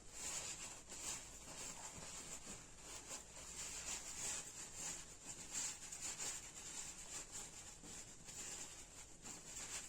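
Repeated short, hissy scraping strokes at an irregular pace, about one or two a second, as taro is worked by hand in the kitchen.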